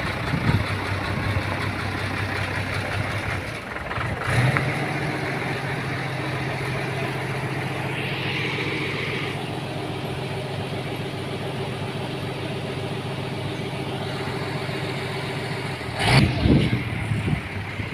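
A vehicle engine running at a steady idle. Several sharp knocks sound over it: one near the start, one about four seconds in, and a cluster near the end.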